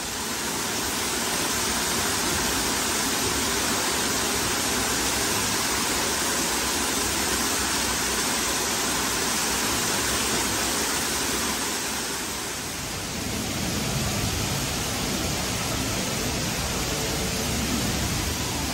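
Artificial waterfall pouring over rockwork, heard from right beside the falling water: a steady, loud rush of water.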